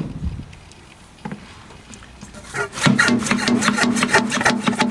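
Hand bilge pump being worked to pump water out of a floatplane float compartment. A knock comes at the start, then from near the middle rapid rhythmic strokes of the plunger rubbing and sucking in the pump barrel.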